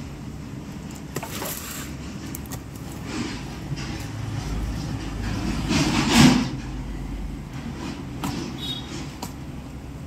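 Cardboard TV carton being handled and opened: scattered scrapes and rustles of cardboard and packing tape. The loudest is a scraping rustle about six seconds in, over a steady low rumble.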